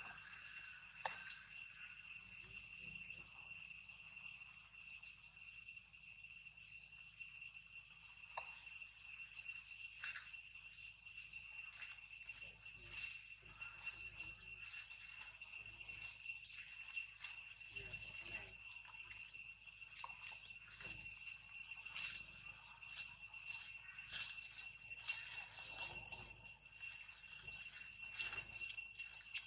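A steady, high-pitched insect chorus in forest undergrowth: several shrill tones held without a break, with faint rustles and ticks scattered through it.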